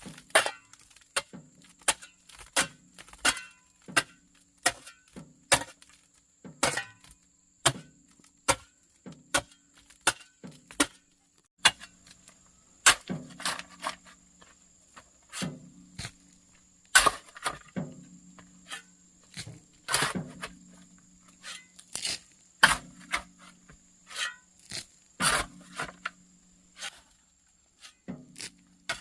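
Repeated chopping blows, irregular, roughly one or two a second, with a low steady hum coming and going beneath them.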